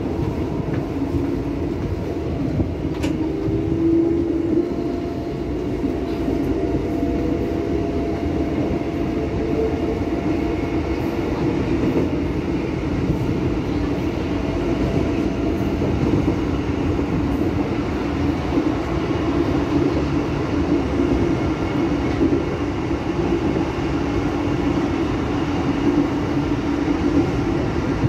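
Tokyo Metro 6000 series electric commuter train heard from inside the car as it pulls away and runs: a steady rumble of wheels on the track with a held hum from the traction motors, rising slightly in pitch early on as it accelerates.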